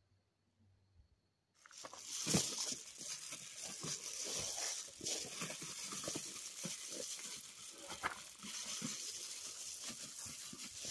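Reflective foil sleeping mat crinkling and rustling as it is unrolled and smoothed by hand over a quilted blanket. The crinkling starts suddenly about a second and a half in, after near silence.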